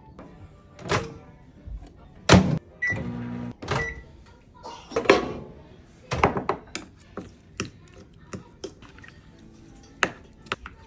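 Background music with irregular sharp knocks and clatters, the loudest about two and five seconds in, and a short low steady tone lasting about a second near three seconds in.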